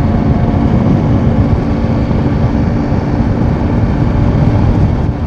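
KTM 890 Adventure R's parallel-twin engine running steadily as the motorcycle cruises, under a constant rush of wind and road noise.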